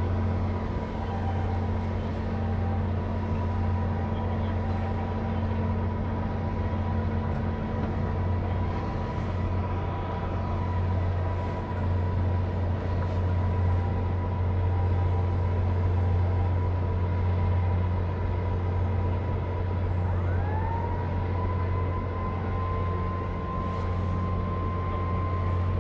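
A steady low engine drone with thin, even whining tones above it. About twenty seconds in, a higher tone slides up and then holds steady.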